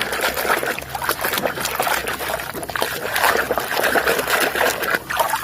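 Water running and splashing over a muddy toy being washed: a steady watery patter with many small clicks.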